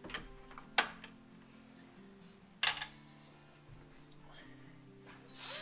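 Metal hand tool clinking against the truck's steel dash frame: a small click about a second in, then a louder, sharper clatter near the middle, over faint background music.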